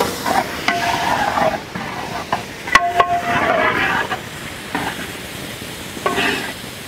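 A long-handled metal spatula stirs freshly added sliced tomatoes through sizzling onion-chilli masala in a large metal cooking pot. The oil sizzles steadily, and the blade scrapes the pot bottom in short strokes, two of them with a brief metallic ring about a second and three seconds in.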